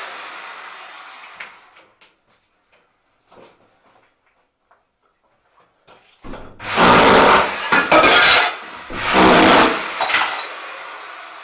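Rotary hammer chiselling ceramic shower tiles off the wall in three short bursts of about a second each, the broken tile clattering and clinking. These come after a few seconds of small scattered clicks from falling shards.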